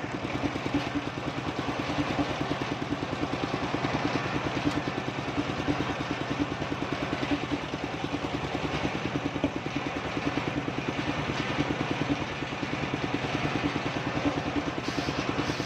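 Engine of a circular-saw sawmill running steadily with a rapid, even beat.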